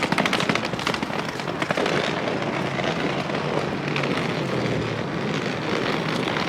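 Shopping cart rattling as it is rolled across a car park, a dense rapid clatter that eases after about two seconds into a steadier rumble, with a low steady hum in the middle.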